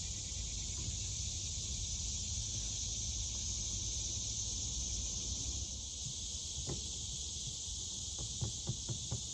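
Steady high-pitched drone of a chorus of insects, unchanging throughout, with a low rumble beneath and a few light knocks toward the end.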